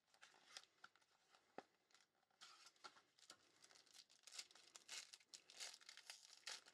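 Foil wrapper of a trading-card pack being torn open and crinkled by hand: faint, irregular crackling that gets busier about halfway through.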